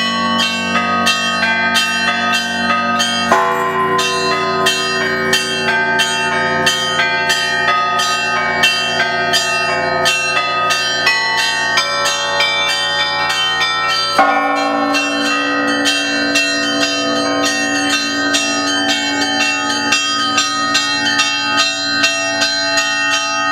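Orthodox cathedral bells rung in a continuous peal: smaller bells struck rapidly, about three to four strokes a second, over the sustained ringing of larger bells. The chord of bells shifts with a heavier strike about three seconds in and again about fourteen seconds in.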